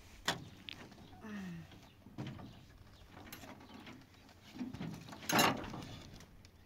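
Knocks and clatter on a pickup truck's metal cargo bed as a man climbs onto it and shoves a cloth-wrapped bundle into place. A louder scraping rush comes about five seconds in.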